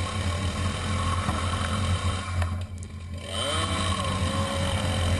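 Chainsaw running at speed, cutting away a knot on the side of an oak log. It eases off briefly about three seconds in, then revs back up.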